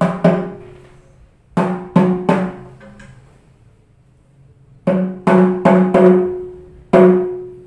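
Hadroh habsyi bass drum, struck with a mallet, and small tung drum, struck by hand, played at their standard factory tuning. About ten hits come in short groups, each ringing on with a clear pitched tone before dying away.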